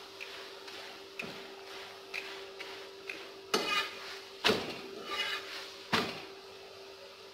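Metal spatula clacking and scraping against a flat metal tawa as a paratha is turned over: several sharp clacks, the loudest about four and a half and six seconds in.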